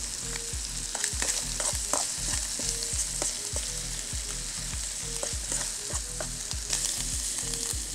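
Diced meat sizzling in a frying pan, with frequent short clicks of a utensil stirring against the pan.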